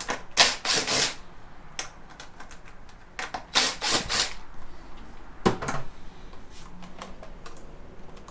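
Two screws being backed out of the motorcycle with a driver: two short, noisy bursts of about a second each, some three seconds apart. A sharp knock follows about five and a half seconds in, with small ticks and clicks of parts being handled in between.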